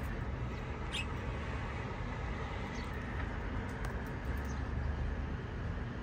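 A budgerigar gives a short, high chirp about a second in, with a couple of fainter chirps later, over a steady low rumble of background noise.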